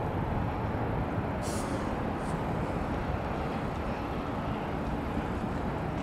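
Steady low rumble of outdoor city background noise, with two brief hisses about one and a half and two seconds in.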